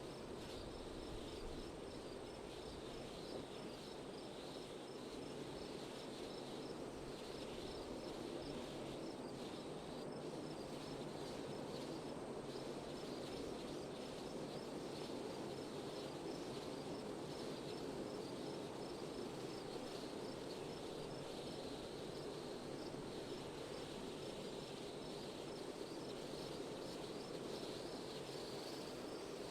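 Steady wind noise with crickets chirping in a fast, even pulse.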